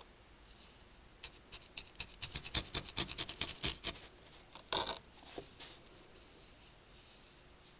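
Felting needle stabbing repeatedly through a ball of wool into a foam pad: a run of short scratchy jabs that speeds up to several a second, with one longer rasp midway, then stops.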